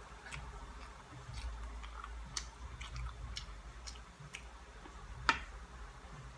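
A person eating a banana up close: chewing with irregular wet mouth clicks and smacks, and one sharper click about five seconds in.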